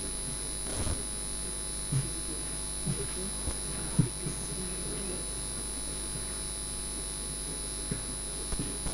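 Steady electrical hum from the sound system, with a few soft knocks and rubs of a handheld microphone being passed and handled. The loudest knock comes about four seconds in.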